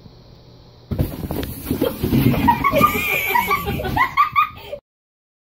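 A person laughing, a run of short rising laughs that starts about a second in and cuts off suddenly near the end.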